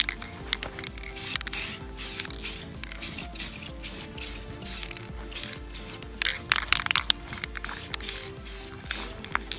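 Aerosol can of clear enamel spraying clear coat onto a painted motorcycle fairing in a quick series of short hissing bursts, about two a second, with a brief pause midway.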